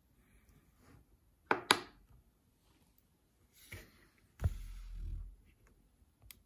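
Sharp clicks and taps from keys being pressed on a CNC controller's keypad, the loudest a quick double click about one and a half seconds in. About halfway through there is a thump and a short low rumble.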